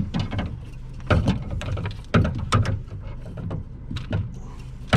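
Wire hoops and clips of a collapsible round crab pot being handled and clicked into place: a series of irregular metallic clicks, knocks and rattles, with a steady low hum underneath.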